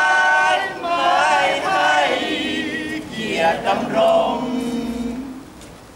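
A group of men and women singing a song together, with long held notes. The singing thins out and fades near the end.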